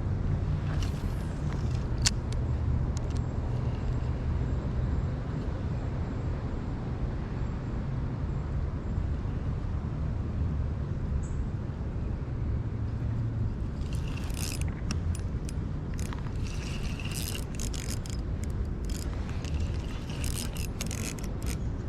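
Steady low rushing of river water around a wader. About two-thirds of the way in, a run of short sharp splashes and clicks starts.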